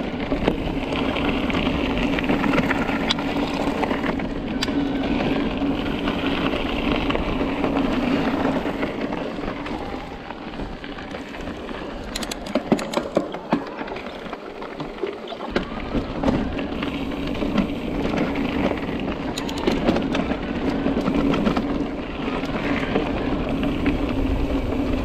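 Mountain bike ridden along a rough off-road trail: steady rolling noise from the tyres on the ground, with a steady low hum and scattered clicks and rattles from the bike and its loaded bags.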